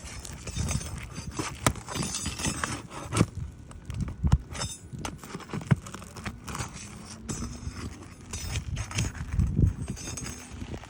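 Irregular knocks, clicks and scraping of hand work on asphalt roof shingles as a shingle is worked loose for a repair attempt.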